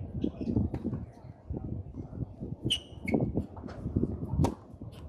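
Spectators talking, with short knocks of a tennis ball. A sharp crack about four and a half seconds in as the serve is struck, and a brief high chirp around three seconds in.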